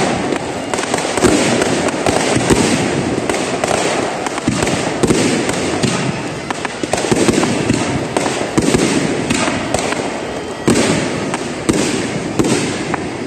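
Aerial fireworks bursting in quick succession: a dense, continuous run of booms and crackles, with a sharp louder burst about ten seconds in.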